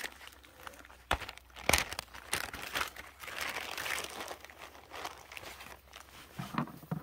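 Irregular rustling and crinkling close by, with several sharp clicks and knocks and a longer rustle around the middle.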